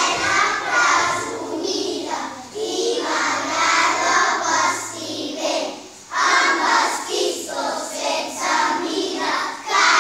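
A group of young children singing together in unison, with a short break about six seconds in.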